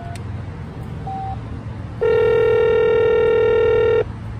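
Pay phone keypad tones beeping briefly as the last digits are dialed. Then, about two seconds in, a telephone ringback tone sounds once for about two seconds, the signal that the called line is ringing.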